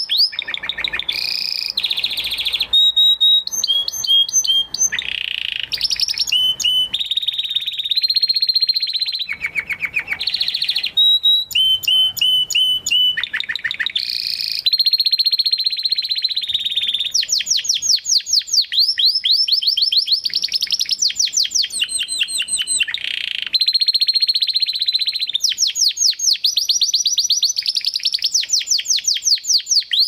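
Domestic canary in full, continuous song: fast trills and rolls of repeated notes, switching to a new phrase every second or two, with long runs of quick rising sweeps in the second half.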